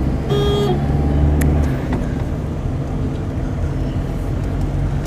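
Steady engine and road rumble inside a moving car's cabin, with one short car-horn toot about half a second in. The engine note swells briefly over the first second or two.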